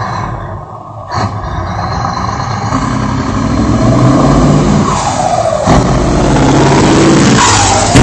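Iveco TurboStar V8 truck running on open exhaust pipes, accelerating hard as it comes up and passes close by. The engine note climbs, breaks off briefly a little before six seconds in, then climbs again, getting louder as the truck nears.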